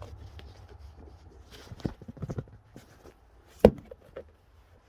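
A boot being pulled off and knocked out to get rid of something inside it: a few scuffs and light knocks about two seconds in, then one sharp knock about three and a half seconds in, with a smaller one just after.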